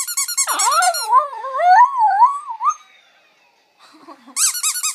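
Poodle howling: one wavering howl of about two seconds that rises and falls in pitch. A rapid high warbling squeak runs at the start and comes back near the end.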